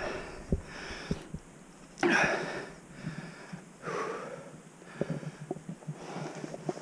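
Heavy breathing of a climber close to the microphone, hard from the effort of scrambling: three loud breaths about one and a half to two seconds apart, the second the loudest, with light clicks of boots and hands on rock between them.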